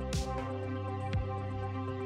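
Electronic background music: held synth chords over deep kick-drum hits that fall in pitch about once a second, with a cymbal hit at the start.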